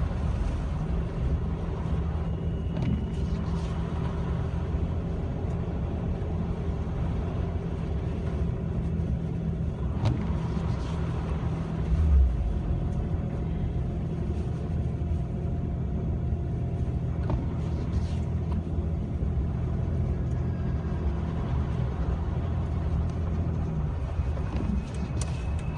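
Jeep Wrangler TJ running steadily at low speed, engine and road noise heard from inside the cabin, with a single low thump about 12 seconds in.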